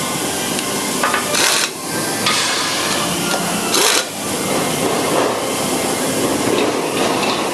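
Pneumatic impact wrench working on the crusher's bolts in two short bursts, about a second and a half and four seconds in, over steady loud workshop noise.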